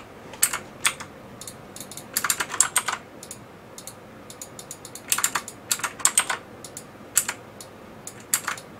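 Computer keyboard keys clicking in short, irregular bursts, with a few single clicks between them.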